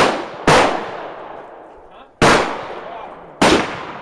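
Glock 27 .40 S&W pistol firing four shots: two about half a second apart at the start, then two more about a second apart. Each sharp crack is followed by a trailing echo.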